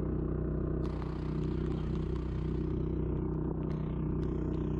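A small engine running steadily at an even speed, with a few light clicks over it.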